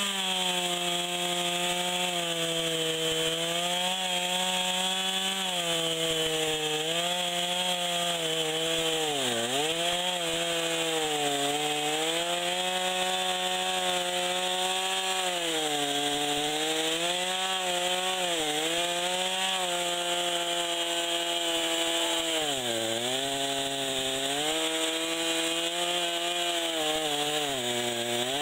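Two-stroke chainsaw cutting through a large red oak log at high revs, the engine pitch sagging several times as the chain bites in under load and then picking back up.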